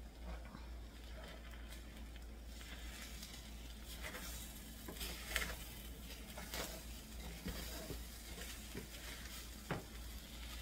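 Fried rice sizzling in a stainless steel pan while a wooden spatula stirs it, the sizzle growing a couple of seconds in. Scattered scrapes and taps come from the spatula against the pan.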